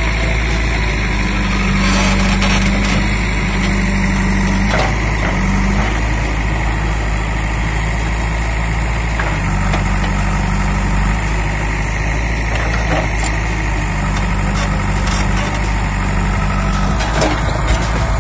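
JCB 3DX backhoe loader's diesel engine running steadily while the backhoe arm digs. Its hum swells and eases several times as the hydraulics work.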